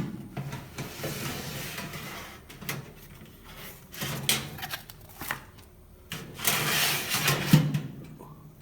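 A new microwave oven and its packaging being handled: a sharp knock at the start, two spells of rubbing and rustling, and a few clicks and knocks between them.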